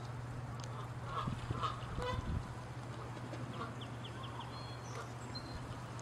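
Canada geese honking: a few loud honks between about one and two seconds in, then fainter scattered calls.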